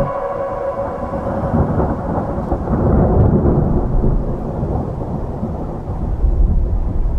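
Thunderstorm-like ambience of rain and rumbling thunder, starting abruptly as the keyboard chord cuts off. It is a loud, low, rumbling noise that swells about three seconds in and again near the end.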